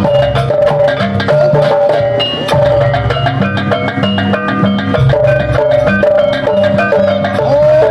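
Jaranan Buto gamelan accompaniment: fast, dense drumming and struck percussion under a high, held melody line that wavers and bends.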